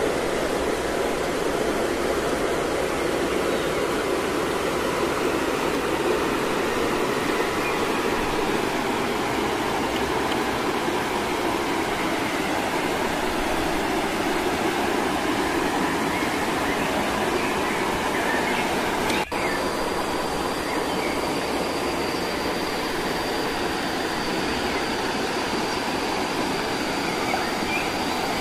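Steady rushing water of a small waterfall and stream. It breaks off for an instant about two-thirds of the way through, then carries on with a faint high steady tone over it.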